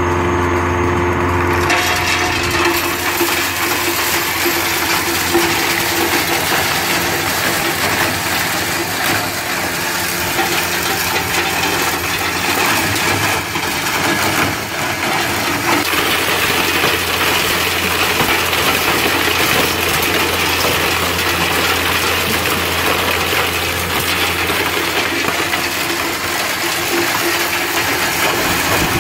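16 by 12 hammer mill with a quarter-inch slotted screen grinding dry oyster shells: a steady low hum from the running mill under a dense, continuous clatter of shell being crushed.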